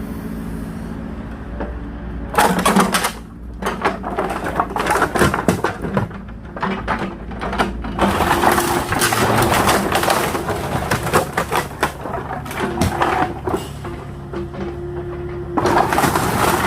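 Small excavator engine running steadily while pallet wood is crushed under the machine, with repeated loud cracking and splintering of boards starting about two seconds in and coming in bursts.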